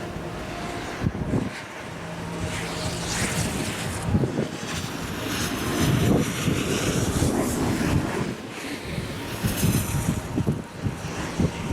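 Strong headwind buffeting the microphone in gusts, over the hiss and scrape of skis carving long turns on snow.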